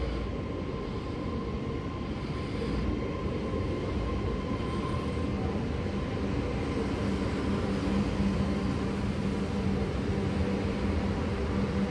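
Sydney Metro Alstom Metropolis driverless train running slowly along the platform: a steady rumble of wheels on rail with a level electric hum, growing a little louder partway through.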